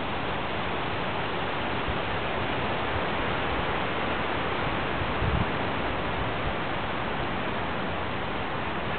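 Steady, even hiss of background noise, with a short low thump about five seconds in.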